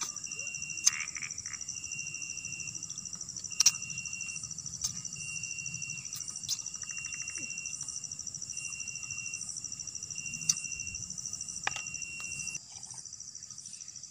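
Night insect chorus: crickets keep up a steady high-pitched buzz, while another caller repeats short, even-pitched notes about once a second, stopping near the end. A few sharp clicks break in.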